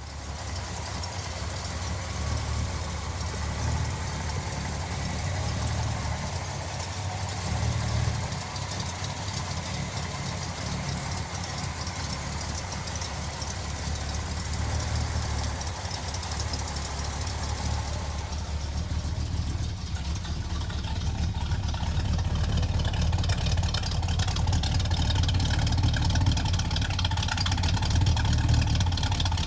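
1969 Pontiac GTO's 400 cubic-inch V8 running at a steady idle, with a low, even exhaust note from its twin tailpipes.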